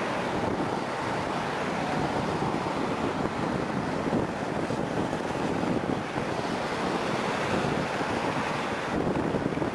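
Jet noise from a Boeing 747-400's four turbofan engines at takeoff thrust, a steady rushing rumble heard from behind as the airliner climbs away.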